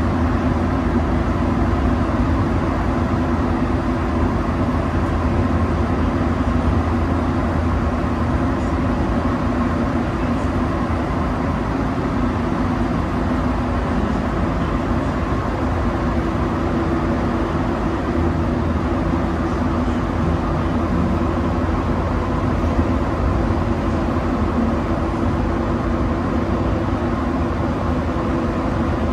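Rubber-tyred Montreal metro train running at steady speed, heard from inside the car: an even rumble with a low steady hum over it.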